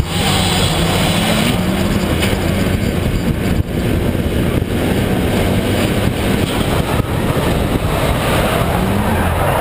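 Drift car's engine running hard through a slide, its pitch rising and falling, under heavy rushing wind noise on the roof-mounted camera's microphone.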